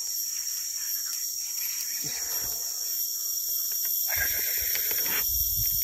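Steady high-pitched drone of forest insects. About four seconds in, a hooked baung catfish splashes and thrashes as it is reeled up out of the water.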